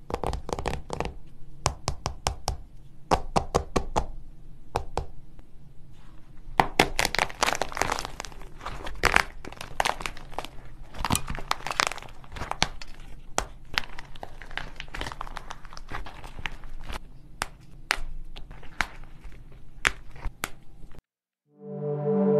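A hard painted shell cracked and crunched apart by hand over a crumbly filling: a long, dense run of sharp cracks and crinkles that stops suddenly about a second before the end.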